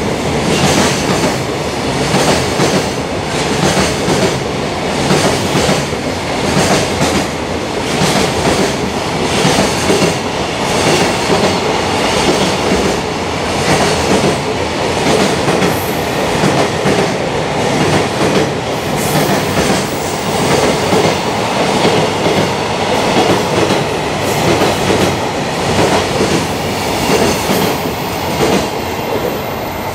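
Long freight train passing close by, its wagon wheels clacking over the rail joints in a steady repeating rhythm. A faint high whine rises in over the last few seconds.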